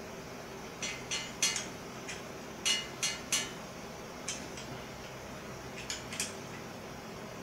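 A scattered run of light, sharp metallic clinks and taps, about ten in all, bunched in the first few seconds with a few more later. It is the sound of metal tools and bicycle parts being handled and set down on a workbench.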